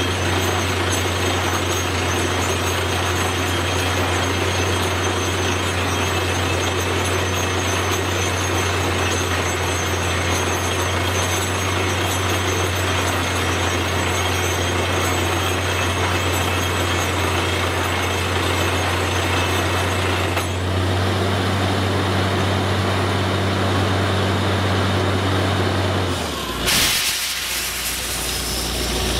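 Truck-mounted borewell drilling rig running steadily under load, its engine and air compressor driving the drill and blowing dust and cuttings out of the hole. Near the end the engine note drops to a lower idle, with a brief sharp hiss of released air as the compressed air is cut off.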